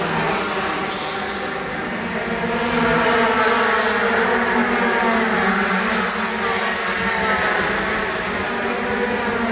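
Several two-stroke superkarts racing past at speed, their high-revving engines overlapping into a dense, steady engine note whose several pitches drift up and down as the karts pass and shift.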